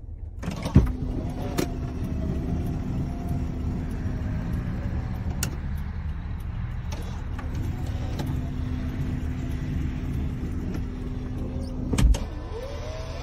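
2007 Dodge Grand Caravan power sliding door opening and closing. It unlatches with a knock, the door motor runs steadily for about five seconds with a click as the door stops open, then the motor runs again as it closes and the door latches shut with a thump near the end. A steady low rumble lies underneath.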